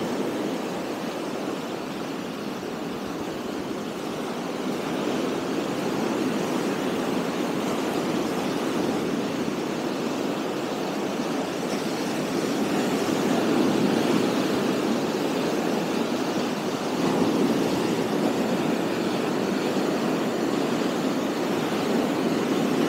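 Surf breaking and washing up a sandy beach: a steady rush of waves that swells a little about thirteen and again about seventeen seconds in.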